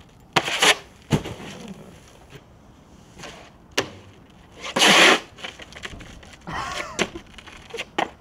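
Snowboard knocking and scraping on a bare concrete ledge: several sharp knocks, with a louder half-second scrape about five seconds in.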